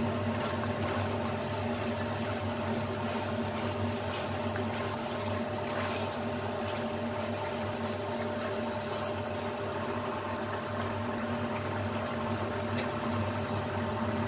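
Brown sauce bubbling and sizzling in a nonstick wok over a gas burner, with a spatula scraping the pan a few times. A steady mechanical hum runs underneath.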